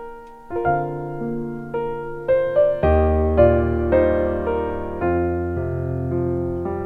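Background piano music, slow notes struck one by one and left to ring, with a fuller, deeper chord from about three seconds in.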